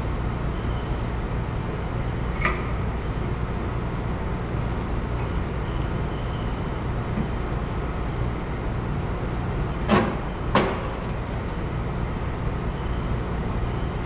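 Metal clicks of a new brake pad and its spring clip being worked into a disc brake caliper bracket: a light click a couple of seconds in, then two sharp clicks about half a second apart near the end as the pad seats. A steady low hum runs underneath.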